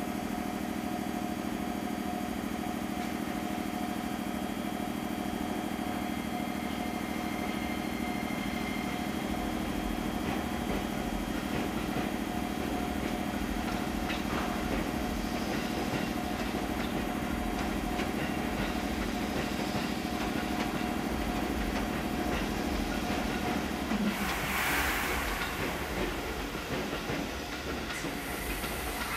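Electric trains in a station: a steady low electric hum with a faint higher whine, over rail rumble. The hum stops about 24 s in, followed by a short burst of hiss.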